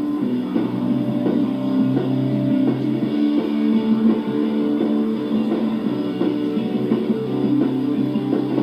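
Rock band playing live: guitars strumming chords over bass and drums.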